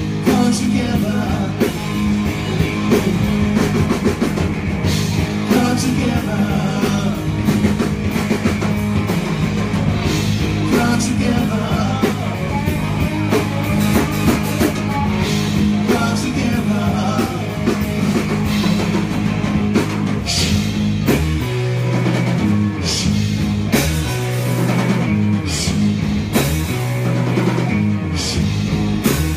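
Live rock band playing: drum kit and electric guitar over sustained low bass notes, loud and unbroken.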